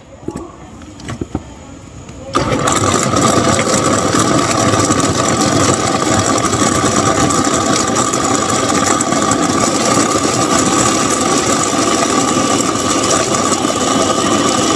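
A motor switches on suddenly about two seconds in and runs steadily and loudly, with a steady whine in its noise. A few light knocks come before it.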